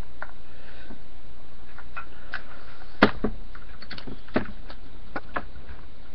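Scattered sharp clicks and knocks of a tool and metal parts being worked against a Tippmann A5 paintball marker's stuck push pin. The loudest knock comes about three seconds in, with a quick run of smaller taps after it, over a steady low hum.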